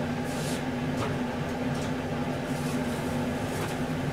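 Steady electric hum of a running kitchen appliance or fan motor, with a few faint light clicks and knocks over it.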